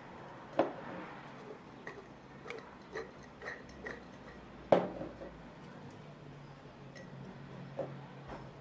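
Radish sticks knocking and clinking against a glass jar as they are pushed in and packed down by hand, with two sharper knocks, one about half a second in and one near the middle.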